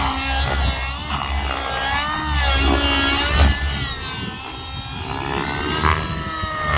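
OS 55 HZ two-stroke glow engine of a Tron Nitron RC nitro helicopter, with a tuned exhaust pipe, running hard in flight, its whine rising and falling in pitch again and again as the helicopter manoeuvres.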